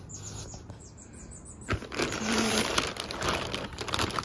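Clear plastic bag around a wicker basket crinkling and rustling as the basket is handled in its cardboard box with paper packing. It is light at first, then turns suddenly loud a little under two seconds in.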